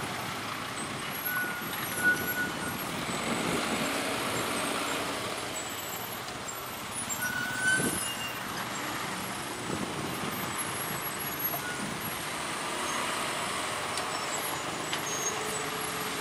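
Diesel trucks and cars driving slowly over a railway level crossing, their engines running at low speed. Two sharp knocks stand out, about two seconds in and near the middle.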